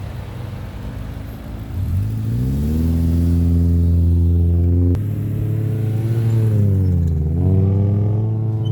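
Subaru flat-four boxer engine revving hard as the car is thrown around in loose sand. The revs climb steeply about two seconds in and are held high, drop back a little about five seconds in, dip and climb again near the end.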